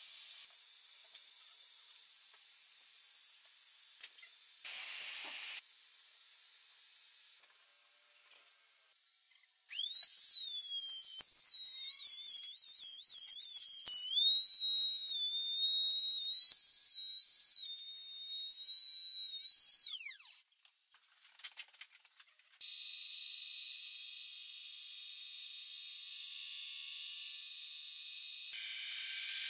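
Trim router running at high speed with a loud whine, starting about ten seconds in; its pitch dips and wavers as the bit cuts, then falls away as it spins down. After a short pause a bandsaw runs with a steady high hiss as it cuts a curve in a small wooden block.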